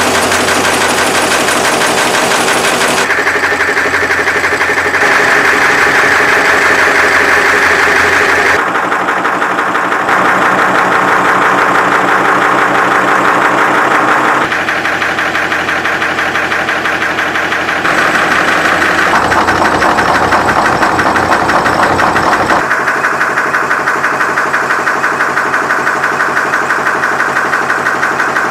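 Pragati automatic wire nail making machine running at speed: a fast, even mechanical clatter from its repeated strokes. The sound changes abruptly several times.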